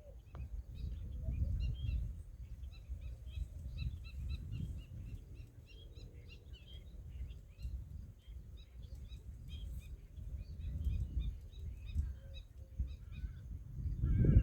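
Several small birds chirping and twittering in short, high, quick notes, over a low rumble that swells and fades.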